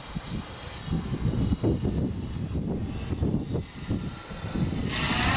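Electric RC helicopter with a four-blade rotor head flying: a steady high motor whine over rotor noise, with wind gusting on the microphone. Near the end the whine briefly surges brighter.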